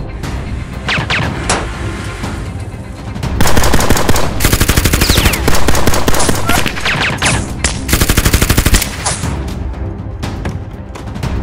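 Long bursts of rapid automatic rifle fire, the shots coming in quick succession for several seconds from about three seconds in, over background music.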